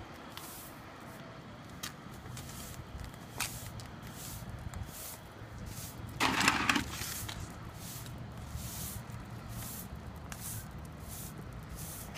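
Push broom sweeping broken window glass across concrete: repeated short bristle strokes with a few small clicks of glass, and one louder scrape about six seconds in, over a low steady hum.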